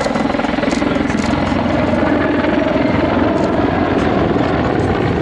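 Mil Mi-24V Hind E attack helicopter in flight, banking through display manoeuvres: the fast, steady chop of its five-bladed main rotor over the running of its twin turboshaft engines, loud and unbroken.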